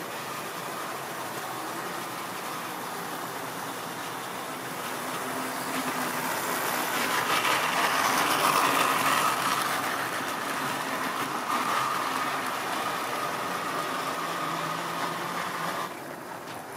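Tri-ang model train passing on the track, its small electric motor humming and its wheels running on the rails. It grows louder to a peak about eight seconds in as the coaches go by, fades, then drops off as the last coach passes near the end.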